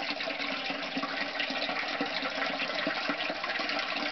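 Water pouring and splashing steadily in a basement sump pit.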